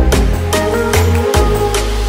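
Background electronic music with a heavy bass and a steady beat.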